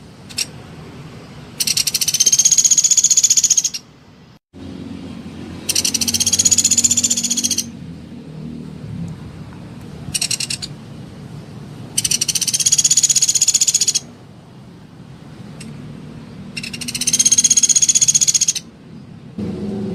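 Pelatuk beras woodpecker giving four high, rapid trills of about two seconds each, spaced a few seconds apart, with one short call between the second and third.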